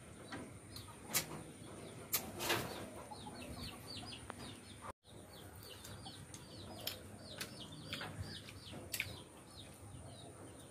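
Small birds chirping over and over, short high falling chirps several times a second, with a few sharp clicks between them. The sound drops out for an instant about five seconds in.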